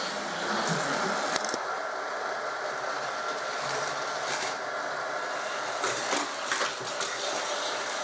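Battery-powered Hot Wheels Power Booster whirring steadily, with a few sharp clacks of plastic toy cars on the track.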